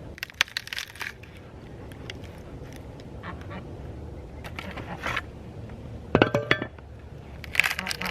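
Wood being split with a froe: scattered sharp knocks and cracks, with a louder crack carrying a brief pitched ring about six seconds in and a quick run of knocks near the end.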